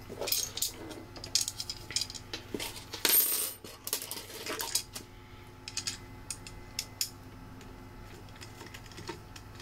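Small metal screws and nuts clinking and clicking as they are picked from a pile on a wooden floor and handled while a plastic fan is fitted to the drive stack. A longer, louder clatter comes about three seconds in, and the clicks grow sparser after that.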